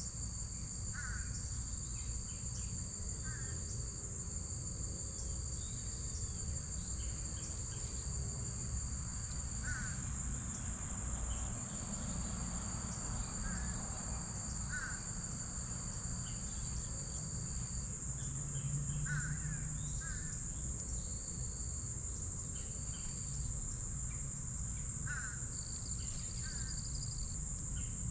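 Insects trilling steadily: one high continuous trill throughout, joined by a second, slightly lower trill that starts and stops in stretches of several seconds. Short chirps come every few seconds over a low background rumble.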